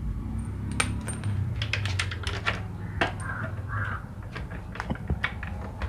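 Irregular sharp taps and clicks of tools and metal engine parts being handled during a Yamaha engine repair, clustered around the middle. Two short harsh calls sound just past the middle, over a steady low hum.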